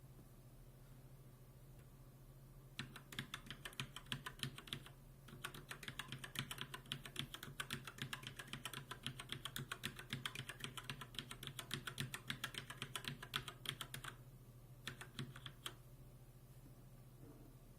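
Fast typing on a mechanical keyboard, a dense run of key clicks that lasts about eleven seconds with a brief break, followed by a short burst of a few more keystrokes.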